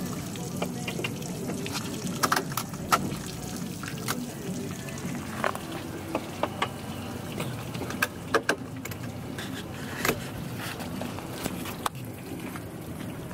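Water trickling and dripping from a bass boat's hull and outboard lower unit onto wet pavement after the boat is pulled from the lake, with scattered sharp clicks and knocks from handling at the transom.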